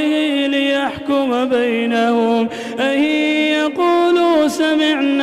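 A man chanting Quranic verse in melodic tajweed style, holding long drawn-out notes and sliding between pitches, with short pauses for breath between phrases.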